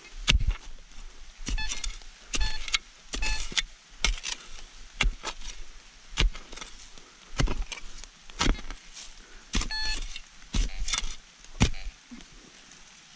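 Old metal-detected bullets and cartridge cases clinking as they are handled and dropped against each other, about fifteen sharp clinks at irregular intervals, roughly one a second, many with a brief metallic ring. The clinking stops near the end.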